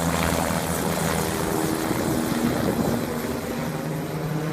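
A steady engine drone with a low hum, fading away toward the end.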